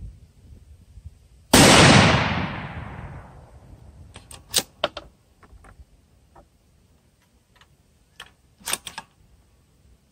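A single rifle shot from a Savage bolt-action .243 Winchester, firing a 70-grain Sierra MatchKing ladder-test load over Varget, about a second and a half in; its report echoes away over about two seconds. Later come a few sharp metallic clicks as the bolt is worked, with a second cluster of clicks near the end.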